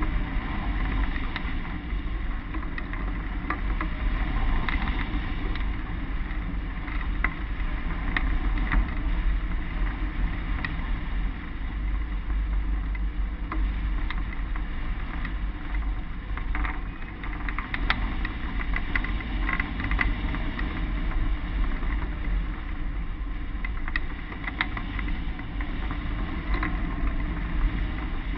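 Wind rushing over the microphone of a camera mounted on a hang glider's wing in flight: a steady, rumbling rush of air with scattered small clicks and rattles.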